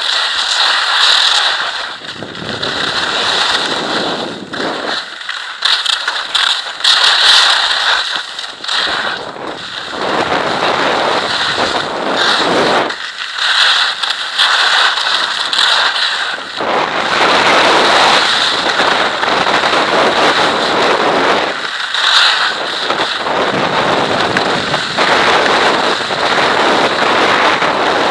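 Skis scraping and chattering over hard-packed snow at speed, with wind rushing over the microphone; the scraping swells and fades every few seconds as the skier turns.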